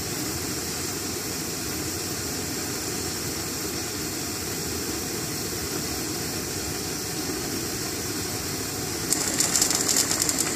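Steady rushing roar of a gas burner heating a pan of red lentils. About nine seconds in it gives way to the louder crackle of the lentils bubbling up at a hard boil.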